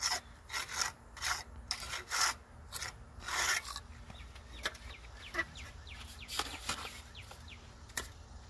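Steel tuckpointer scraping wet mortar off a trowel and into brick mortar joints in a run of short rasping strokes, about two a second, for the first three and a half seconds. Then quieter, with a few light ticks of the tools and a sharp click near the end.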